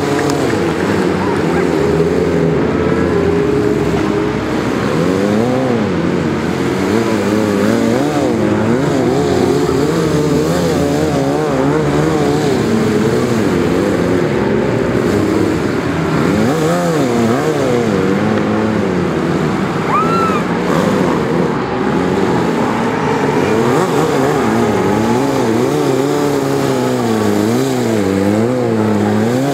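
Stunt motorcycle's engine running throughout, its revs rising and falling over and over as the throttle is worked to hold the bike balanced on one wheel.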